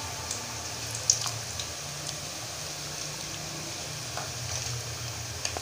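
Dahi bara fritters of mung dal and gram flour batter sizzling and crackling in hot oil in a karahi, with one sharp click about a second in.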